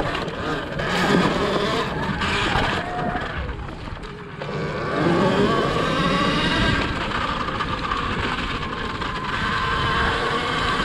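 Surron Ultra Bee electric dirt bike being ridden over dirt and grass: a steady motor and drivetrain whine mixed with wind and tyre noise, the pitch rising as it speeds up about five seconds in.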